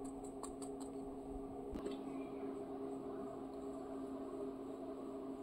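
Quiet indoor room tone with a steady low hum, and a few faint light clicks in the first two seconds.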